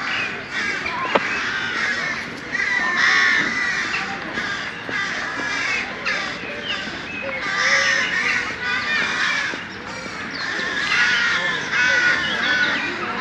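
A flock of birds calling, many short calls overlapping into a continuous chatter that swells louder a few times.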